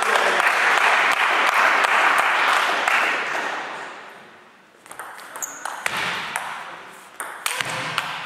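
Spectators clapping for about four seconds after a point, dying away. Then a table tennis rally: the celluloid ball clicks sharply off the bats and the table in quick succession.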